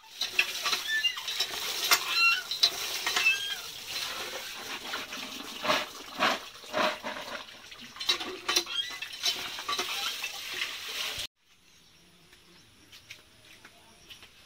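Water gushing from a pump spout onto jackfruit seeds in a plastic basket as they are rinsed, with the seeds and basket clattering. It stops abruptly about 11 seconds in, giving way to faint, quiet background sounds.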